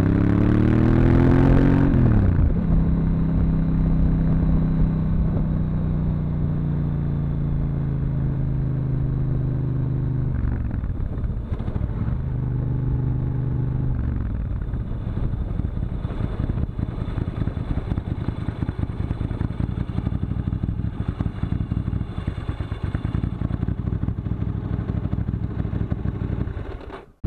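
1997 Ducati 900SS's air-cooled V-twin engine heard on board: it revs up under acceleration, the revs drop about two seconds in, and it runs steadily at cruise. In the second half it falls to a low, rough tick-over as the bike slows and stops, with wind rushing over the microphone throughout.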